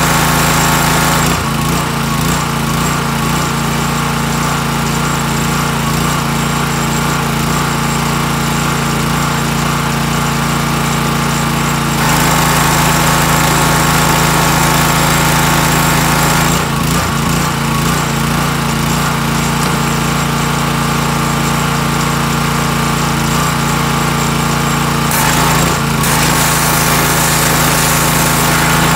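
Small gasoline engine of a pressure washer running steadily under the hiss of its high-pressure water jet. The hiss changes in character several times as the spray is pulled on and let off.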